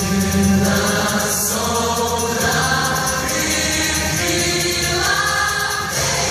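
A small vocal group singing in close harmony, several voices holding chords that change every second or so.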